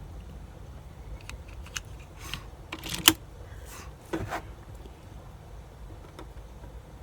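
Light clicks and handling noises from an air rifle being readied between shots, with a sharper clack about three seconds in and a softer one about a second later.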